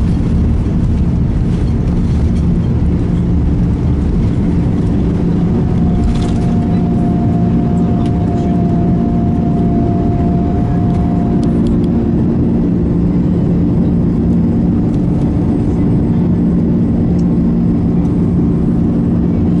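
Airbus A330-200 jet engines running at high power during takeoff, heard inside the cabin as a loud, steady rumble with a low drone. A steady higher tone joins in for about five seconds in the middle.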